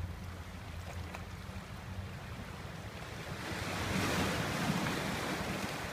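A sea wave washing up the stony beach: a rushing wash that swells about three seconds in and fades near the end. Wind rumbles on the microphone underneath.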